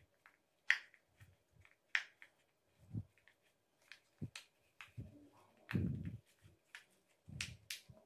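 Silicone pop-it fidget toy bubbles being pressed in by fingers, giving irregular soft pops about one or two a second, some sharp clicks and some dull thuds.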